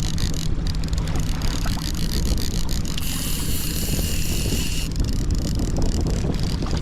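Boat motor running steadily while trolling, with wind rumbling on the microphone. About halfway through a high hissing buzz comes in for about two seconds and stops.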